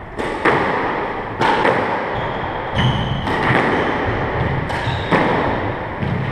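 Squash rally: the ball knocking sharply off the rackets and the court walls about once a second. Between the knocks, a few short high squeaks of sneakers on the wooden court floor.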